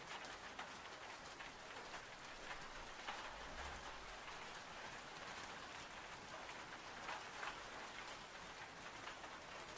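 Faint, steady rain: an even patter of raindrops.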